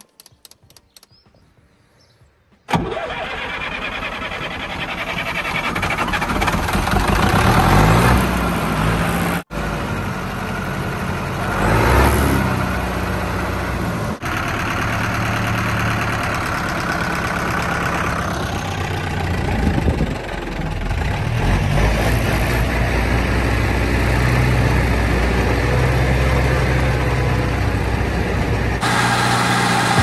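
Zetor 7341 tractor's four-cylinder turbo diesel engine starting up abruptly about three seconds in, after a few faint ticks, then running steadily. It revs up twice, around eight and twelve seconds in, and the sound briefly cuts out twice.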